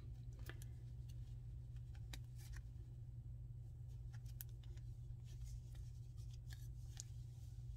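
Faint handling sounds of crocheting: soft scattered clicks and scratches as a large plastic crochet hook is worked through jumbo polyester velvet yarn while single crochets are worked into a ring. A steady low hum lies underneath.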